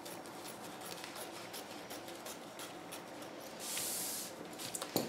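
Scissors cutting doubled cotton poplin fabric: a quiet run of small irregular snipping clicks from the blades. A brief rustle comes a little before the end as the paper pattern and fabric are shifted on the table.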